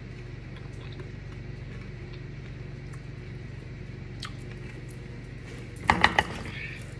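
A woman tasting food, with a few faint clicks of chewing and fork over a steady low hum. About six seconds in she gives a short wordless vocal reaction in three quick pulses.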